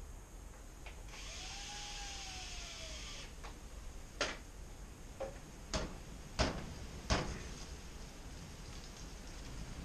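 A cordless drill whirs briefly about a second in, its pitch rising and then falling. Then come five sharp clinks of hand tools on metal, about half a second to a second apart.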